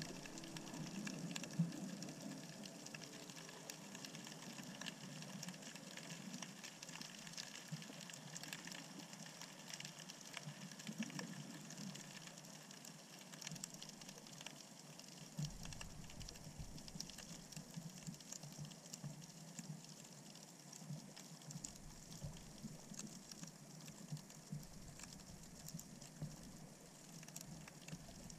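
Faint underwater sound picked up by a camera in its waterproof housing: a steady hiss full of fine crackling clicks. A low rumble comes and goes from about halfway through.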